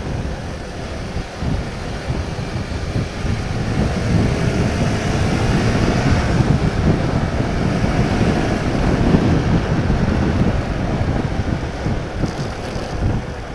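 Motorcycle riding with its engine pulling steadily, the engine note rising gently over the first few seconds, under heavy wind rumble on the microphone that grows louder midway as speed builds and then eases near the end. The bike is a Honda CB150R StreetFire with a 150 cc single-cylinder engine.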